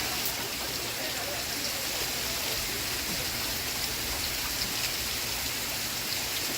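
Steady rainfall, an even hiss with scattered drops ticking.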